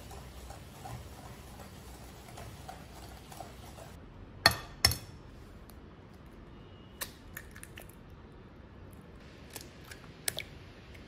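Eggs tapped against the rim of a glass mixing bowl to crack them. There are two sharp knocks about half a second apart, then a few lighter clicks, and another small cluster of knocks near the end.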